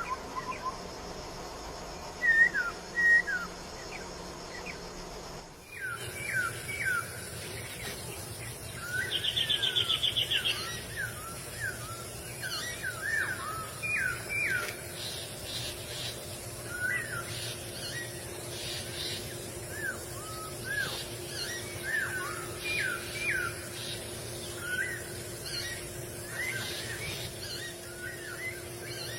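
Masked laughingthrushes calling: short sliding whistled notes, sparse at first, then a dense chatter of overlapping call notes from several birds after an abrupt change about six seconds in, with a brief buzzy rattle around ten seconds in.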